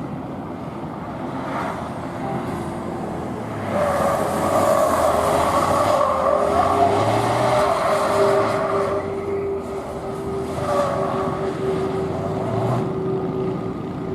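A gymkhana car's engine being driven hard through the course, revs rising and falling as it accelerates and brakes. It grows much louder about four seconds in, eases off after about nine seconds, then picks up again twice near the end.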